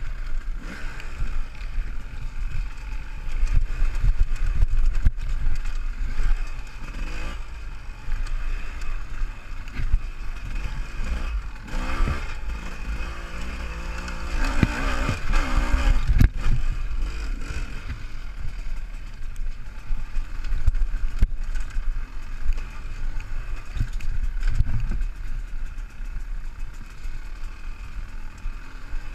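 Enduro dirt bike's engine running as it is ridden over rough ground, its pitch rising and falling with the throttle, the strongest revving around halfway through, over a heavy low rumble.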